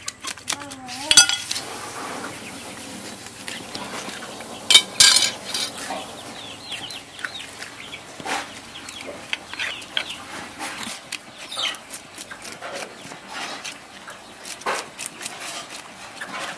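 Metal spoon scraping the scales off a tilapia on a wooden board: a steady run of short, quick scrapes. Chickens cluck in the background.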